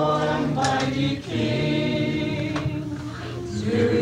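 A group of people singing together in unison, with several notes held for about a second.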